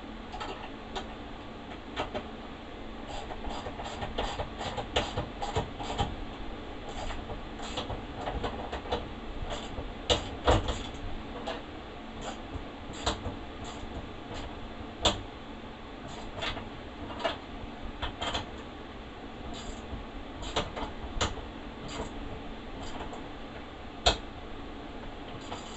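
Irregular clicks, taps and knocks of hand work fitting a gas lift strut to a bus's rear window, a few louder knocks among them, over a steady background hiss.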